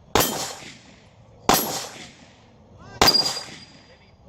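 Three pistol shots about a second and a half apart, each followed by a short echo. After the third comes a brief high ringing tone.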